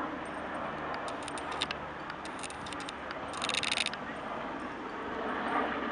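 Aerospatiale AS350 single-turbine helicopter flying past overhead, a steady rotor and turbine noise. A run of sharp clicks comes over it in the first half, and a short high-pitched burst a little past the middle.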